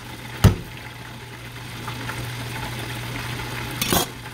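Kitchen knife chopping through the base of a fresh bamboo shoot onto the counter: one sharp chop about half a second in, then a short run of knocks near the end, over a steady low hum.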